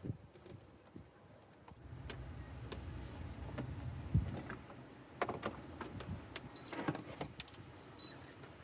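Strong wind buffeting, heard as an uneven low rumble, with scattered small clicks and knocks of things being handled.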